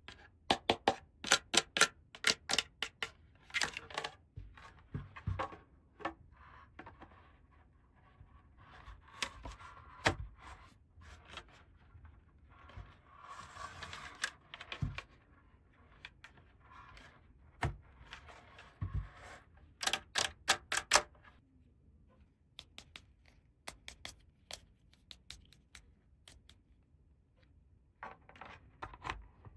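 Small hard plastic toy pieces and packaging being handled. Quick runs of sharp clicks and taps alternate with bursts of crinkling wrapper, then sparser ticks near the end.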